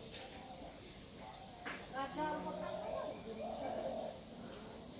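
An insect chirping in a steady, rapid, high-pitched pulse, with faint distant voices underneath.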